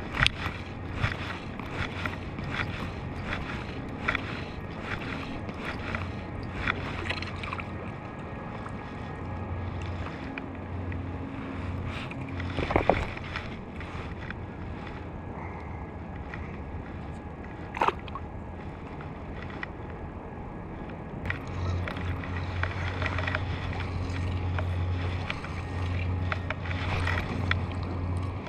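Water lapping and rippling under a steady low hum, with many small clicks and ticks of tackle and a caught fish being handled in the first several seconds. Two sharper single knocks, about 13 and 18 seconds in.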